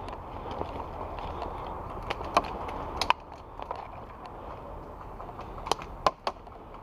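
Rustling of a player moving through forest leaf litter, with several sharp clicks. The loudest clicks come about two and a half and three seconds in, another cluster comes near the end, and the rustling grows quieter after about three seconds.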